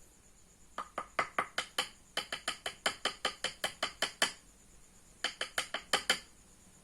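Rapid, sharp clicking taps, about six a second, in three runs: a short burst, a longer run of about two seconds, then another short burst.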